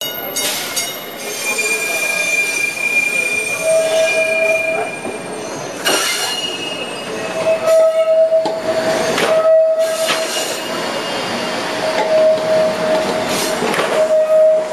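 Trolley wheels squealing on curved track as light-rail cars pass close by, over the rumble of the wheels on the rails. The squeal is a steady high tone that comes and goes, and keeps returning through the second half.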